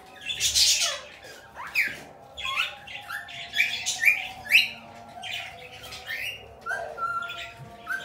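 Small parrots calling: a run of short harsh squawks, about two a second, each a quick sweep up or down in pitch, with a short steady whistle near the end.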